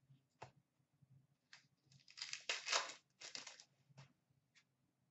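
Faint handling of trading cards: a few short flicks as cards are turned over, and two longer rustling slides of card stock through the hands in the middle.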